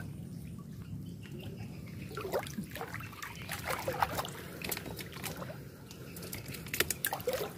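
Shallow water sloshing and trickling as someone wades and gropes through it by hand for fish, with scattered small splashes and clicks over a steady low hum.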